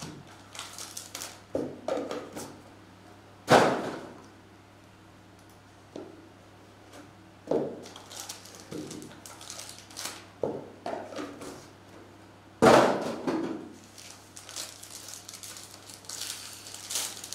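Cardboard card box and foil pack being handled and opened on a desk: scattered rustling and light knocks, two loud sharp knocks about three and a half and twelve and a half seconds in, and crinkling of the foil wrapper being torn near the end.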